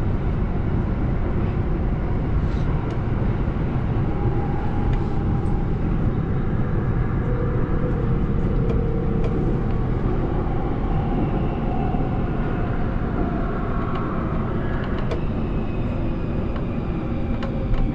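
Automated U-Bahn metro train running through a tunnel: a steady rumble of wheels on rails, with an electric drive whine that shifts in pitch and a few sharp clicks. Higher whining tones build over the last few seconds as the train nears the station.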